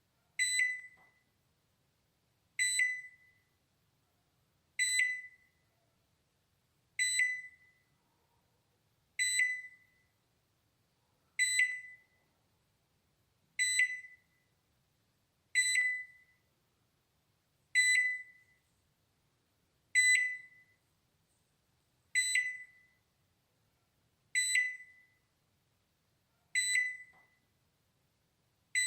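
Balay microwave oven's alarm beeper sounding again and again: a single high-pitched beep with a sharp start that fades away in under a second, repeating about every two seconds.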